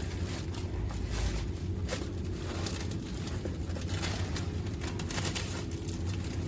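Steady low machinery hum, with a few faint knocks.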